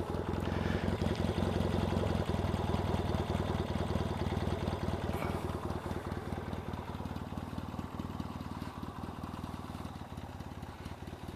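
Yamaha XS650 air-cooled parallel-twin engine idling steadily at a slightly fast tick over, fading a little toward the end.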